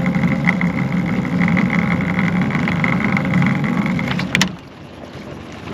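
Boat's outboard motor running steadily with a thin high whine over a low hum, cutting off suddenly about four seconds in with a click.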